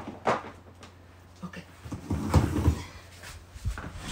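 Rigid plastic soap curing trays knocking together as they are stacked: sharp clacks at the start, duller low thuds about two seconds in, and another knock near the end.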